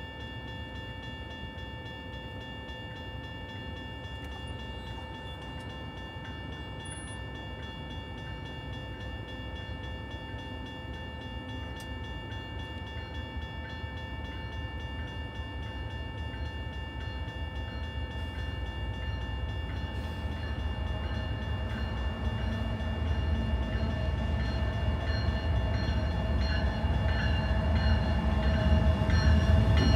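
Railroad grade-crossing warning bell ringing continuously, with the low rumble of an approaching three-locomotive CN diesel train growing steadily louder through the second half.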